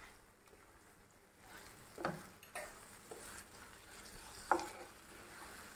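A spatula stirring and scraping thick chilli-and-vinegar masala in a nonstick frying pan, with a faint sizzle as it simmers; a few short scrapes stand out from about two seconds in.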